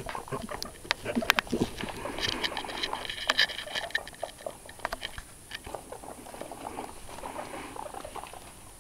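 A small furry pet scrambling about its pen, its feet and body rustling and scratching through hay and fleece bedding in quick irregular clicks and patters. A brief high-pitched sound comes in about two seconds in and lasts a second or so, and the scrabbling grows quieter near the end.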